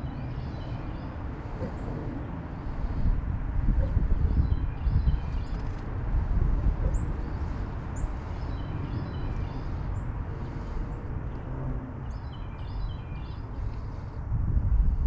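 Small birds chirping in short clusters of high notes, over a steady low rumble.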